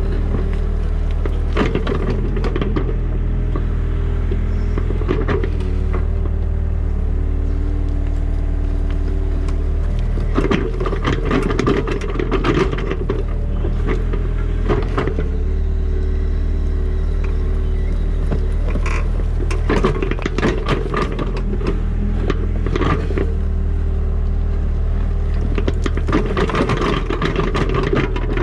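Diesel engine of a digging machine running steadily under load, with scraping and clanking of the bucket and arm working in the soil now and then, in clusters around a third of the way in, about two thirds in, and near the end.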